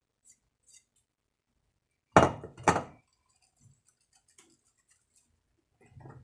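Glass bowl knocking twice, about half a second apart, each knock ringing on briefly. There are faint ticks and rustling from hands working flour into a glass mixing bowl.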